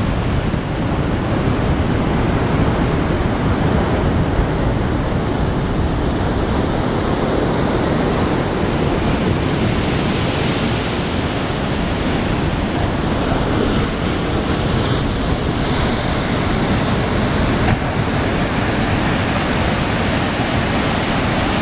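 Heavy surf from large hurricane swell breaking around a pier: a loud, steady rush of waves with no let-up, with wind on the microphone.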